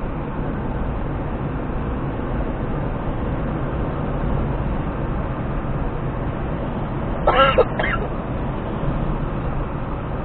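Steady road and engine noise of a car driving at speed, heard from inside the cabin. About seven seconds in there is a brief pitched sound, the loudest moment.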